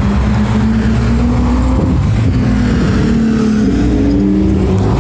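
A car engine revving hard close by, holding a high steady note and then climbing in pitch about halfway through.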